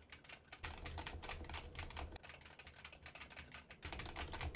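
Fast typing on a computer keyboard: a dense, continuous run of key clicks. It is heard through a Blue Yeti condenser microphone, switching partway through to a RODE PodMic dynamic microphone.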